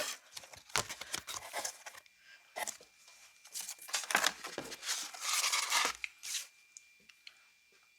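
Packaging of a shipped box being opened and handled by hand: irregular tearing and crinkling rustles with a few sharp ticks, dying away about six and a half seconds in.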